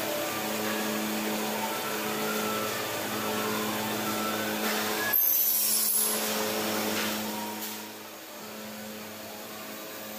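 Glass edging and polishing machine running with a steady hum. About five seconds in there is a brief, louder high whine, and the sound eases off a little after about eight seconds.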